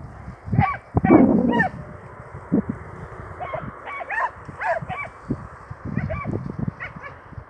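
Short, harsh bird calls repeated in small clusters of two or three, with low thumps in between and a loud low bump about a second in.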